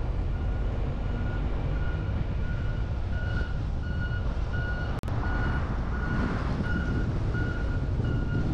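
A reversing alarm on construction machinery beeping steadily, about two beeps a second, over a steady low rumble of wind and road noise.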